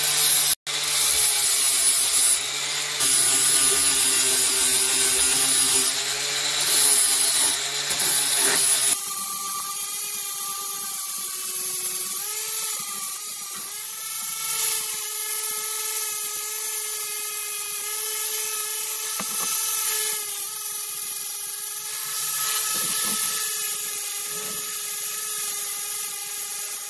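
Angle grinder with an abrasive disc grinding rust off an old steel open-end wrench: a loud, harsh grinding over the motor's hum. About nine seconds in it changes to a steadier, quieter whine of the grinder with lighter contact on the metal.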